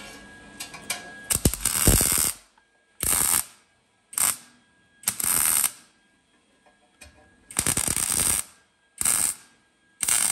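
Wire-feed (MIG) welder arc tack-welding a thin sheet-metal air cleaner housing: about seven short spells of crackling, each half a second to a second long, with brief pauses between tacks.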